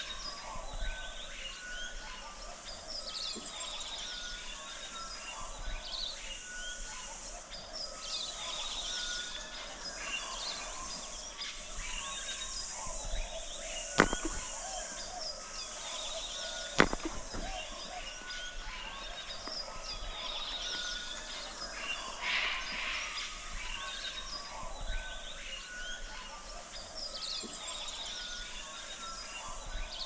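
Many birds chirping and chattering together. Two sharp knocks stand out about halfway through, a little under three seconds apart.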